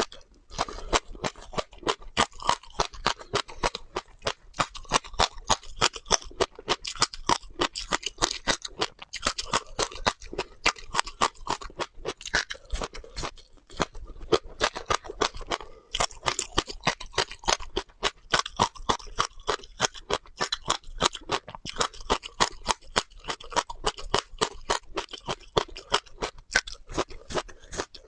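Close-miked chewing of crunchy seeds: rapid crisp crunches, about three a second, with a couple of short pauses midway.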